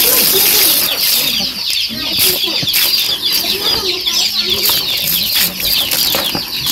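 Chickens: a dense, continuous chorus of chicks' short falling peeps, with lower hen clucking underneath.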